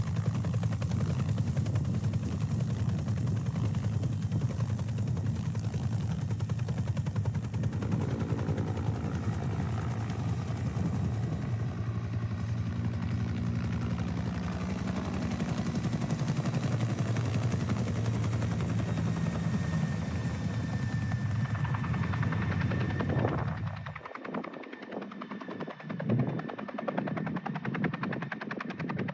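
Helicopter's two-bladed main rotor beating rapidly and loudly as it lifts and flies with a load of brash bags slung beneath it. About 24 s in the sound drops to a quieter, more distant rotor noise.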